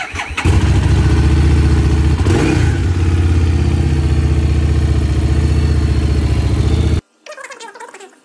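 Harley-Davidson Street Rod 750's V-twin engine starting, catching within the first half second, then running steadily at idle with a brief rise in pitch about two seconds in. The engine sound stops abruptly about seven seconds in.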